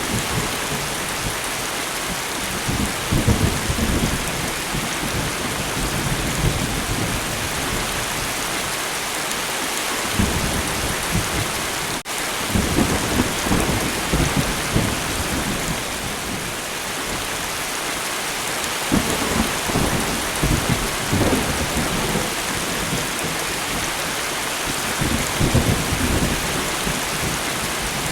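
Steady light rain falling, with low thunder rumbling in several rolls that swell and fade, and a momentary dropout in the sound about halfway through.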